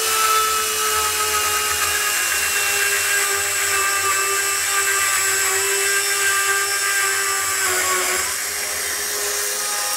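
Bosch EasyCut 12 cordless Nanoblade saw running steadily, its small chain blade plunge-cutting into 18 mm OSB board. The motor whines evenly, its pitch sagging a little under load about eight seconds in.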